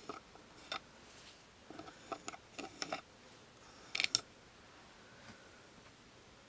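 ASMR hand sounds close to the microphone: fingers and nails making short, sharp clicks and crackles in small clusters, the loudest cluster about four seconds in.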